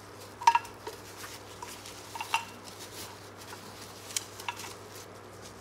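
Handling noises from a plastic-wrapped coffee maker and its carafe: a few sharp clicks and knocks, the loudest about half a second in, with soft rustling of plastic film between them.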